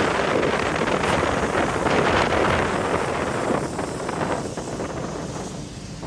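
Wind buffeting the microphone: a loud, steady rushing noise that eases off over the last couple of seconds.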